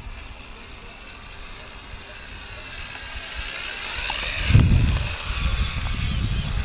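Electric motor and propeller of a radio-controlled P-51 Mustang model whining in flight, growing louder and gliding down in pitch as it passes close about four seconds in, with a brief low rumble at that moment.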